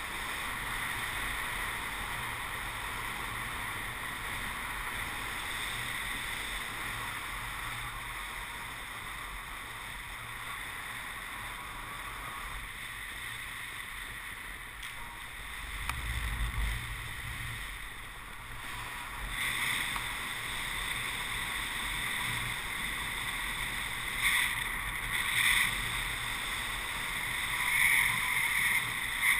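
Wind rushing over the microphone of a camera on a paraglider in flight: a steady hiss, with a low gusty rumble about halfway through and louder gusts near the end.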